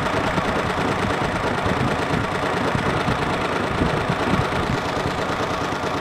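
Briggs & Stratton Vanguard 16 hp V-twin engine running steadily at idle on its first start.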